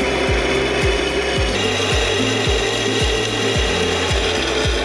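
Drill press bit cutting into steel square tube, a steady grinding scrape of the bit shaving off metal chips. Background music with a steady kick-drum beat and bass line plays over it.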